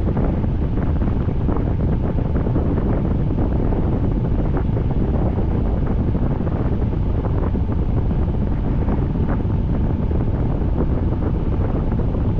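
Steady rain falling, with many small drop taps, over a low rumble of wind on the microphone.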